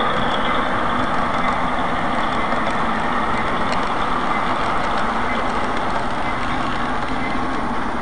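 Model freight train running past at close range: a steady, unbroken running noise of the cars rolling on the track.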